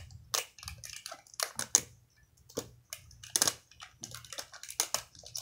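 Irregular crackling and clicking of the plastic wrapping on LOL Surprise toy balls as they are handled and unwrapped by hand.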